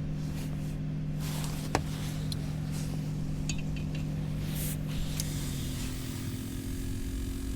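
A vehicle engine idling with a steady low hum that steps up in pitch about five and a half seconds in. There is one sharp click about two seconds in and a few faint light clinks.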